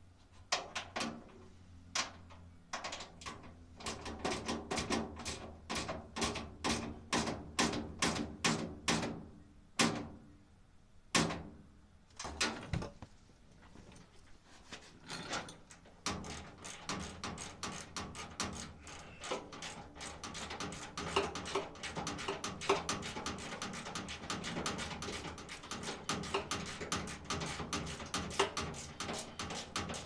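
Clicking and light metal clinks from a hand tool working a fastener inside a washing machine's sheet-metal cabinet: separate clicks a fraction of a second apart at first, then a fast continuous run of clicks over the second half.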